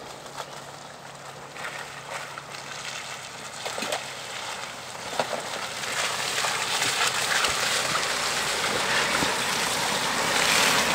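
Subaru Forester's tyres churning and splashing through deep, water-filled mud ruts, with sloshing and slapping of muddy water, growing steadily louder as the car comes up close; its engine runs low underneath.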